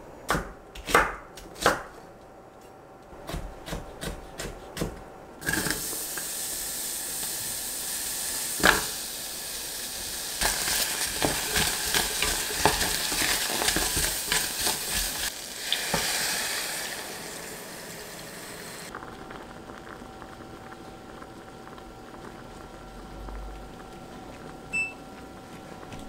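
Doenjang and vegetables sizzling as they are stir-fried in a pot, a spatula scraping and clicking as it stirs. It opens with a few sharp knocks, and about three-quarters of the way through the sizzle drops away to a quieter steady sound.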